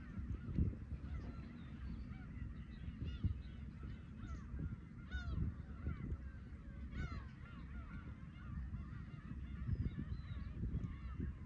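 A flock of black-tailed gulls calling continuously, many short mewing calls overlapping, over the low, steady wash of sea waves.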